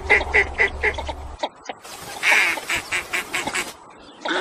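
Northern shoveler calling: a rapid run of short, evenly repeated calls, about four a second, that breaks off about a second and a half in. A second run of calls follows about a second later.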